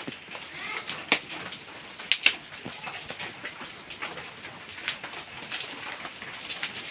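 A few sharp metallic clicks and knocks from an airgun being handled while its silencer is fitted. The loudest are a close pair about two seconds in. A dove coos in the background.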